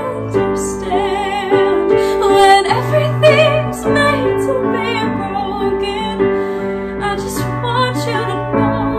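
A woman singing a held, expressive vocal line with wide vibrato over a piano accompaniment of sustained chords.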